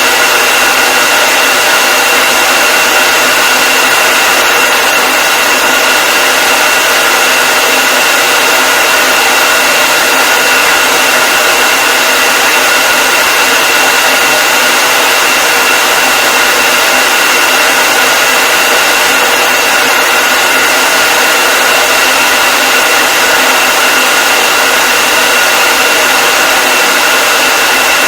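Hair dryer running continuously at a steady speed: a loud, even rush of air with a constant high whine from the motor and fan, unchanging throughout.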